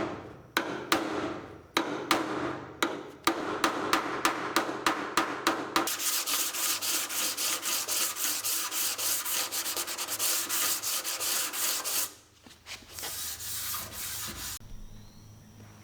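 Hand sanding: slow back-and-forth strokes about two a second, then fast, dense scrubbing strokes from about six seconds in. The sanding pauses briefly near twelve seconds, gives one more short burst, and stops.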